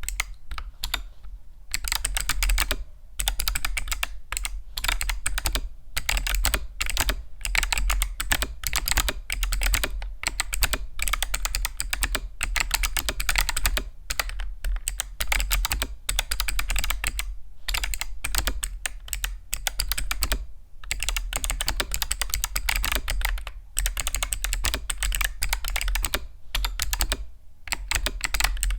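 Continuous fast typing on a mechanical keyboard with Kailh Box Summer clicky switches: dense, crisp, high clicks in long runs broken by short pauses, a sound the uploader likens to cicadas.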